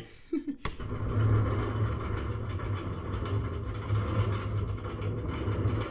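Roller coaster train climbing its chain lift hill: a steady low rumble from the lift chain and track, with faint clatter, starting just after a sharp click about half a second in.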